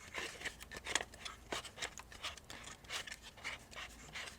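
Faint, irregular scraping and small clicks of a paintball barrel being screwed by hand into the threaded front of a BT Delta marker.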